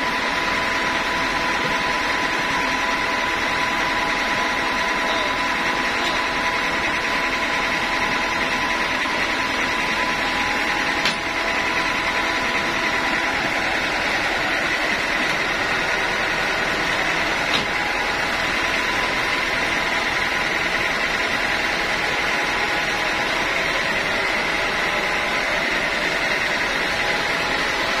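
Band sawmill running steadily, not yet under load: a constant mechanical hum with a steady high whine. Two short sharp knocks, about eleven seconds in and again some six seconds later.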